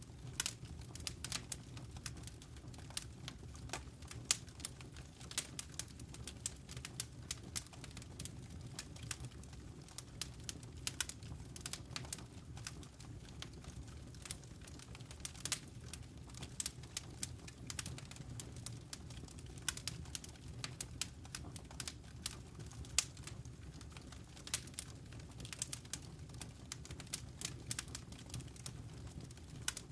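Wood fire burning in a fireplace: a steady low rumble of flames with irregular sharp crackles and pops, several a second.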